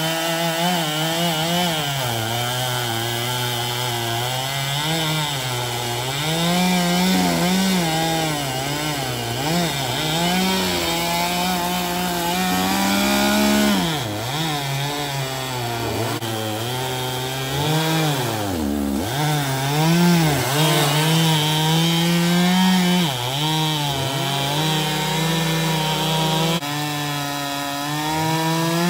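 Two-stroke chainsaw cutting through a felled tree trunk, the engine held at high revs with its pitch sagging and recovering as the chain loads up in the wood. Twice, about halfway through, the engine pitch drops sharply and climbs back.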